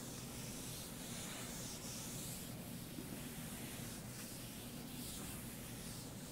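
Chalkboard eraser wiping across a chalkboard in repeated strokes: a faint, soft rubbing hiss that swells and fades with each stroke.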